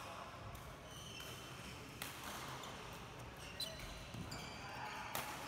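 Badminton rally: rackets striking the shuttlecock about every second and a half, sharp single hits, with shoes squeaking on the court floor.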